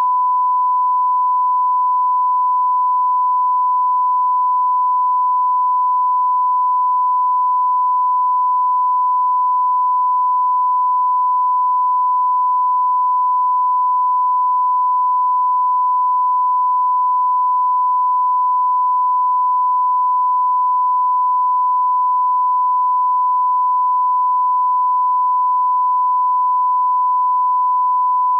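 Broadcast line-up tone: a single steady pure tone, the 1 kHz reference tone that goes with colour bars, held unbroken at a constant level.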